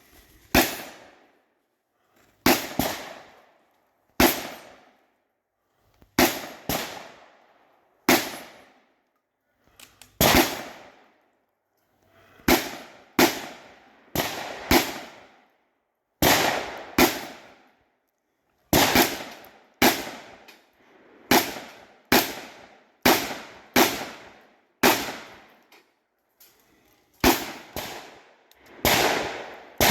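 Shotgun fired in a string of single shots, about two dozen, each followed by a short echoing tail. The shots come one to two seconds apart, some in quick pairs, and quicken over the last half.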